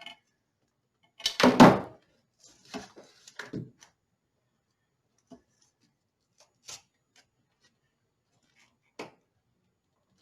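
Small parts being handled and knocked down on a work surface: a loud double knock about a second and a half in, a quick run of lighter knocks, then a few scattered faint clicks.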